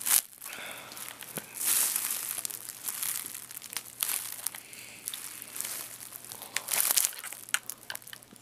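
Rustling and scraping of hands and a small tool working at a laptop's plastic screen bezel, close to the microphone. The sounds come in uneven bursts, with several sharp clicks near the end.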